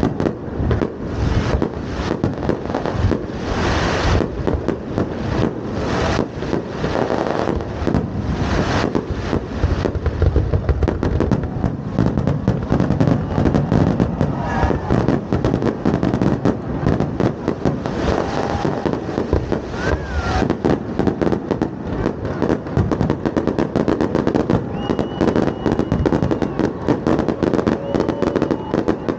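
Fireworks going off in a rapid, continuous run of bangs and crackles, with a few short whistling tones in the second half.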